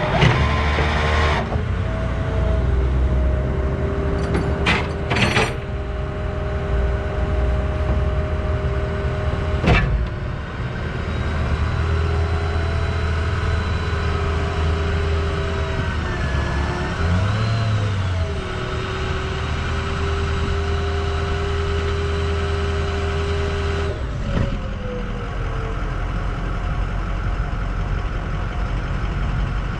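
Tow truck running with a steady mechanical whine over the engine's rumble, typical of its hydraulics or winch working. The pitch sags briefly a little past halfway and winds down with a falling whine later on. A few sharp metal clanks come in the first ten seconds.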